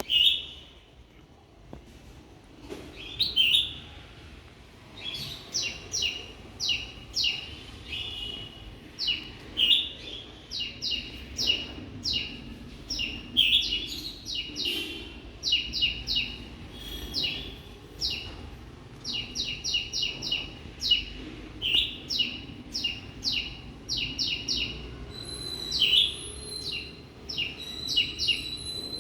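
Small birds chirping: short, sharp chirps in quick runs of several a second, with louder single calls now and then. Near the end a thin, high, held note joins them.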